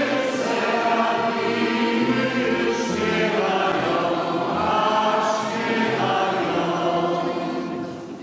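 A choir singing a slow church hymn in sustained voices, fading out near the end.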